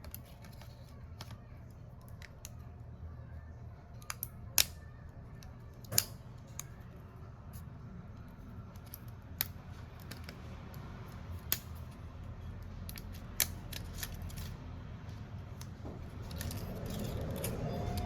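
Small hand tools working on a phone during a screen repair: scattered sharp clicks and snips, a handful of them louder, over a steady low hum.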